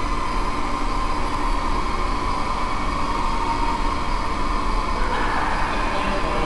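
Blade Nano QX FPV micro quadcopter motors and propellers buzzing steadily in flight, with a slight shift in pitch about five seconds in.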